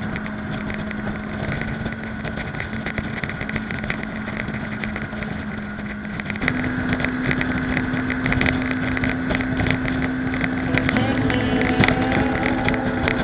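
Modenas Dominar D400's single-cylinder engine running steadily while riding, with wind on the microphone. About halfway through, the engine note steps up in pitch and gets louder as the revs rise.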